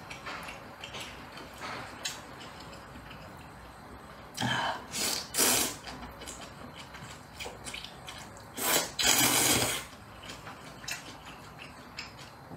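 Slurping rice noodles in spicy broth: a few short slurps about four to six seconds in, then a longer, louder slurp about nine seconds in, with small clicks between.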